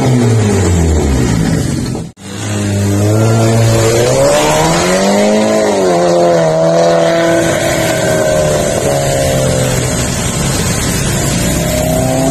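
Volkswagen Golf MK5 GTI's turbocharged four-cylinder running through an aftermarket performance exhaust. It is revved and falling back, then breaks off abruptly about two seconds in. The engine then pulls up and down in pitch while driving, holds a fairly steady note, and climbs again near the end.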